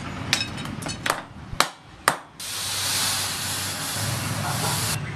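Four hammer blows on a steel sword blade at the anvil, each with a short metallic ring. The hot blade is then quenched in a water trough, a loud steady hiss of steam for about two and a half seconds that cuts off suddenly.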